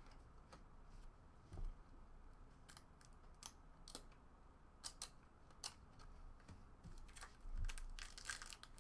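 Faint, irregular clicks and ticks of trading cards being handled and flipped through, with a couple of soft thumps.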